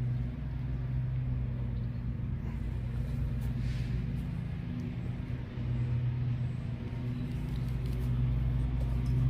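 Steady low machine hum over a deep rumble, growing a little louder about six seconds in and again near the end.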